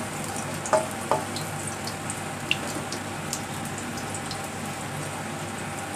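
Ginger slices sizzling steadily in hot oil in a wok, stirred with a spatula, with a few short clicks in the first seconds.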